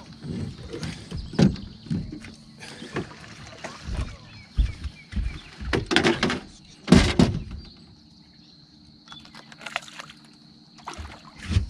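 Irregular knocks, thumps and rustles of rod and gear being handled in a small fishing boat while a hooked blue catfish is fought, the loudest thump about seven seconds in. A faint steady hum runs underneath.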